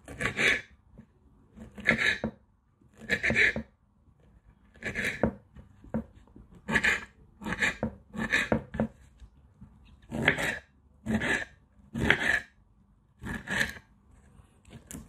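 A kitchen knife cutting through fruit, about a dozen separate slicing strokes roughly one a second.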